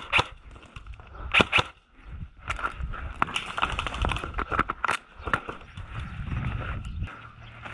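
Two quick shots from an electric airsoft gun about a second and a half in, then footsteps and gear rattling as the player moves across sandy ground.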